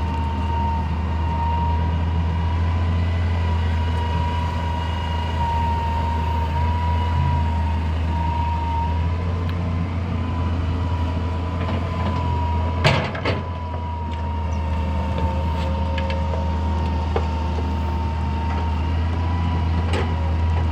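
Hitachi EX200 excavator's diesel engine running steadily under work, a low drone with a thin high whine riding over it. One sharp metallic clank sounds about two-thirds of the way through.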